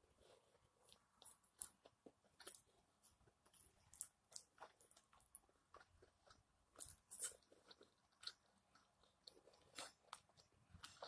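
A person chewing steak close to the microphone: faint, irregular wet clicks and smacks from the mouth, several a second.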